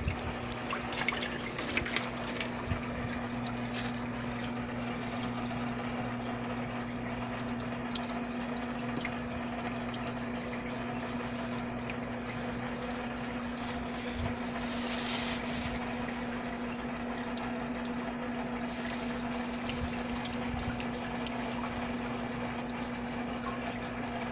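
Water trickling steadily over the low hum of a small water pump, with a few light knocks and a brief louder hiss about fifteen seconds in.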